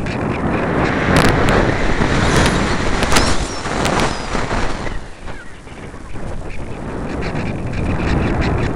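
Airflow rushing over the microphone of a camera mounted on a light thermal glider in flight. It swells and fades with the buffeting, with several sharp clicks in the first few seconds and a drop for about a second past the middle before it builds again.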